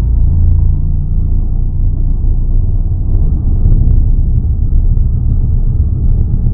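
Super GT race cars driving through the chicane, heard as a loud, steady low rumble with little in the upper range.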